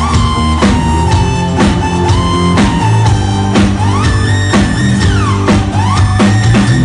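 Background music: a rock-style track with guitar over a steady drum beat of about two beats a second.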